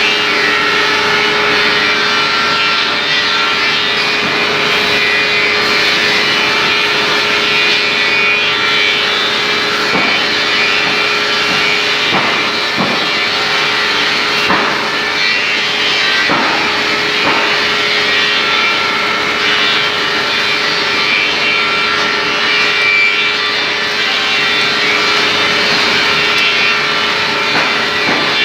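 Wood floor sanding machine running steadily: a constant hum with an abrasive rasp of sanding on wood, and a few light knocks in the middle.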